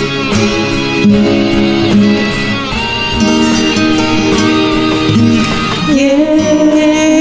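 Guitar-led instrumental music: a melody over a steady backing, with a long wavering note near the end.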